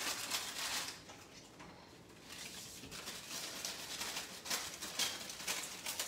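Plastic food packaging rustling and crinkling as it is handled, with a lull of about a second early on before the crinkling picks up again.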